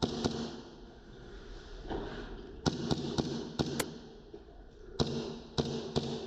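Airsoft guns firing: sharp pops, with a quick run of about five shots around the middle and three more spaced about half a second apart near the end, over a low steady hum.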